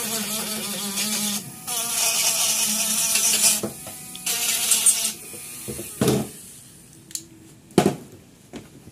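Small high-speed power tool running in three short bursts, a steady hum under a strong hiss, followed by a few sharp knocks near the end.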